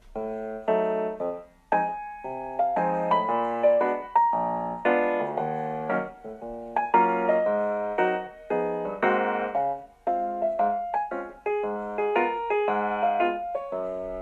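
Background music: a piano or electric piano tune played in short repeated chords.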